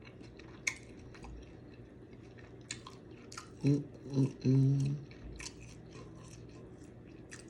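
Close-miked chewing and wet lip smacking on seafood, with scattered short mouth clicks. A little past halfway come three short hummed "mmm" sounds, the loudest part.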